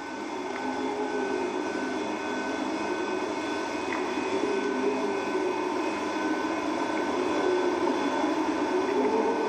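Steady underwater rushing and whirring of a no-limits freediving sled descending its guide cable, slowly getting louder, with a thin high whine that keeps breaking off and coming back.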